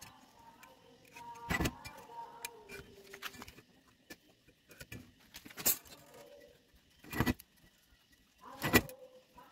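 Steel ruler clinking and knocking against a thin galvanized square steel tube as it is laid out and shifted for marking: several sharp metallic knocks with quieter clicks and scrapes between, the loudest near the end.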